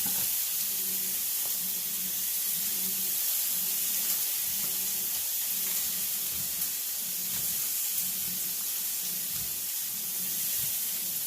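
Vegetables frying in olive oil in a pan over medium-high heat: a steady sizzle.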